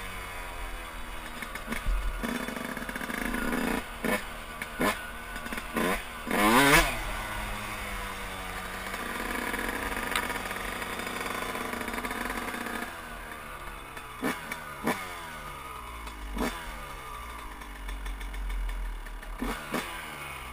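Yamaha YZ125 two-stroke dirt bike engine under way at low speed, blipped with short sharp throttle bursts that each fall away in a long dropping slide, about a dozen times.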